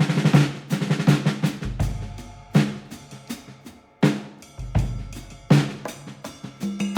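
Background music led by a drum kit, with sharp drum hits that ring out over a deep bass line.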